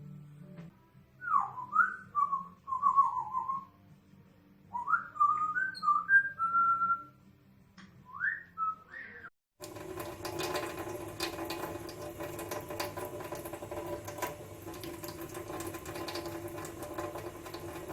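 African grey parrot whistling in three runs of short, gliding notes, some rising and some wavering. After a brief cut about halfway through, a tap runs steadily with a low hum under the rush of water.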